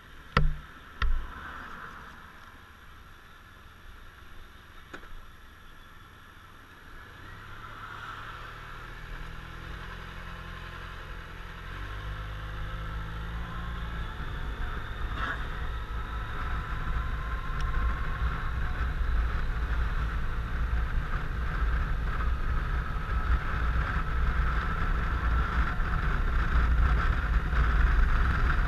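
Suzuki Burgman 650 maxi-scooter's parallel-twin engine pulling away and running, growing steadily louder as the scooter gathers speed, with rushing wind building up. Two sharp knocks about a second in.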